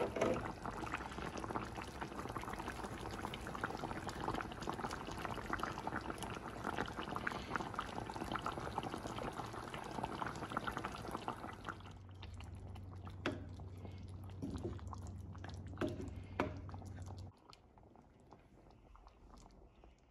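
Fish-head moong dal boiling hard in a large aluminium pot, a dense bubbling and popping. About twelve seconds in it turns quieter, with scattered pops over a low steady hum, and it drops lower still near the end.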